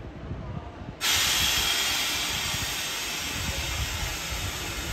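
Compressed air hissing from a stationary electric train at a platform: a loud, even hiss that starts suddenly about a second in and carries on, slowly easing, as air vents from the train's pneumatic system.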